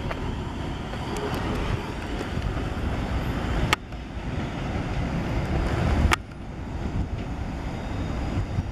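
Class 444 electric multiple unit rumbling away over the pointwork as it departs, mixed with wind buffeting the microphone. Two sharp clicks, one near four seconds in and one about six seconds in, after each of which the sound drops suddenly.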